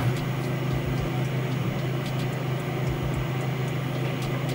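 A steady low hum with a faint haze of noise behind it, broken by a few faint light clicks.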